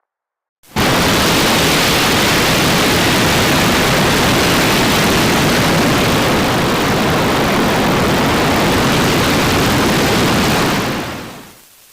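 A loud, steady rushing noise with no pitch in it, starting abruptly after a moment of silence and fading out near the end.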